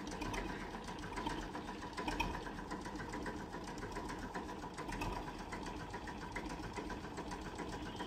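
A running engine, heard as a fast, even mechanical ticking.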